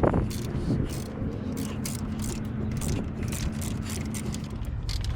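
Ratchet wrench clicking in quick runs, with a sharp metal knock at the start, over a steady low hum.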